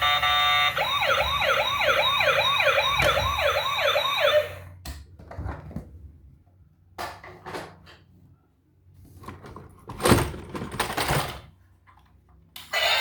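Electronic siren in a fast yelp, about three rising-and-falling sweeps a second, cutting off about four seconds in. Scattered clicks and knocks follow, with a louder rustling burst near the end.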